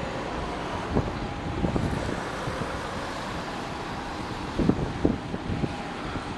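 Steady airport noise of distant jet aircraft engines with a faint whine, overlaid by wind buffeting the microphone in gusts about a second in and again near five seconds.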